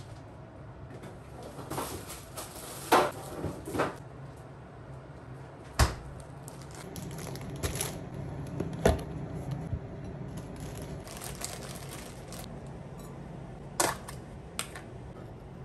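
Plastic food tubs and containers being handled: a series of separate sharp knocks and clicks as they are picked up and set down on a kitchen counter, with a plastic tub lid being pulled open near the end.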